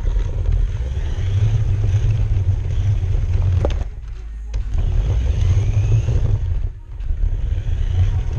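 Toy RC car driving over a hard wood floor, its motor and wheel noise picked up through the GoPro mounted on its body as a deep steady rumble. A sharp knock comes a little before halfway, and the noise drops off twice where the car slows, once for under a second just after the knock and briefly near the end.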